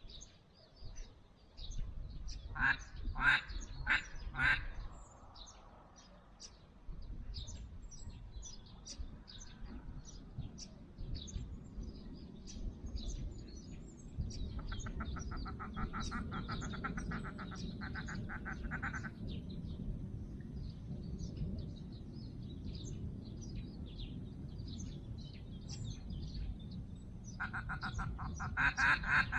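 Mallard quacking: a few loud quacks about three seconds in, a long rapid run of quacks from about 15 to 19 seconds, and another loud run near the end. Small birds chirp throughout over a low wind rumble.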